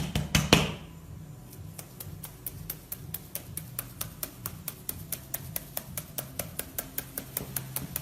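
A few sharp knocks, then about two seconds in an even, rapid ticking begins, about four ticks a second, and runs on steadily.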